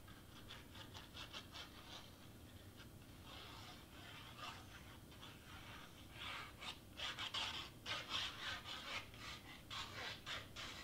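A glue bottle's tip and the hands rubbing and dabbing on cardstock while craft glue is spread under a paper piece, in quick scratchy strokes several a second, louder and busier from about six seconds in.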